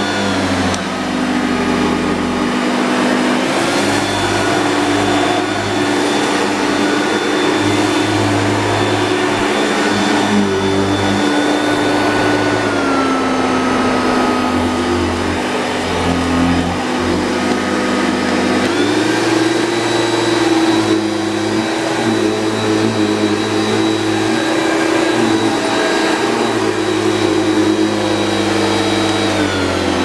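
Hoover Turbopower 2 upright vacuum cleaner running in low power over sawdust on carpet. Its motor hum steps down in pitch about a second in, dips again around the middle, rises about two-thirds through and drops again at the end: the AutoSense dirt sensor raising and lowering the suction.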